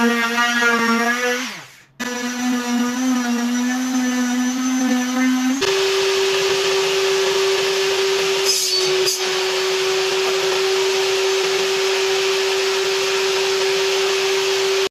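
Palm sheet sander running on pine boards; its motor winds down about a second and a half in, then it runs again. About five and a half seconds in, a table saw takes over with a steady higher whine, and a short burst of cutting noise comes near the middle as the blade cuts half-lap notches on a crosscut sled.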